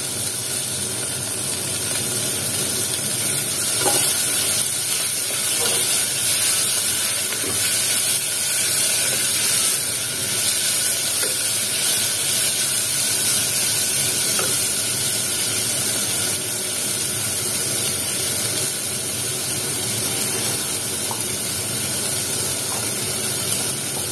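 Onion-tomato masala with mint and coriander leaves sizzling in a pressure cooker while being stirred with a wooden spatula, with a few light knocks of the spatula against the pot.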